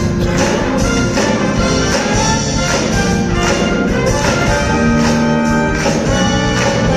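Student orchestra and wind ensemble playing together, brass prominent over strings, in a held, steady-beat passage.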